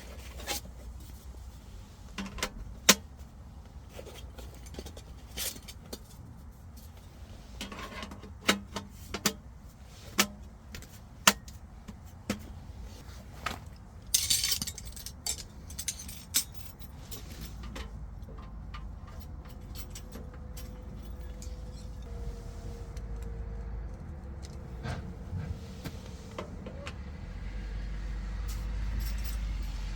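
Scattered sharp clinks and knocks of small hard objects being handled, one short rustling burst about halfway, over a low rumble that grows louder near the end.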